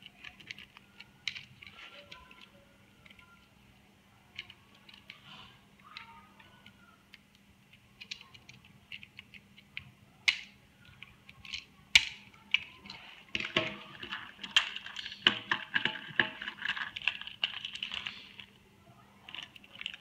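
Small plastic clicks and rattles from a plastic TrackMaster toy engine being handled and its fold-out wing and spoiler parts worked. The clicks come scattered, with a sharper snap about twelve seconds in and a denser run of clicking and rubbing near the end.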